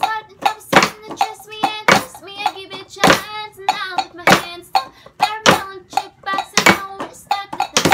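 Rhythmic percussion made by hand on household objects: sharp strikes two to three times a second with a stronger beat about once a second, under a sung melody.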